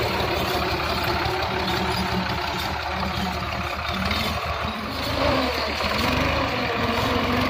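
New Holland 480 tractor's diesel engine running steadily.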